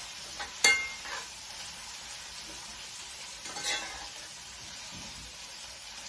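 Crushed garlic and ginger sizzling in hot ghee in a pan, with a steady hiss. A utensil clinks and scrapes against the pan a few times, loudest just under a second in and again near four seconds.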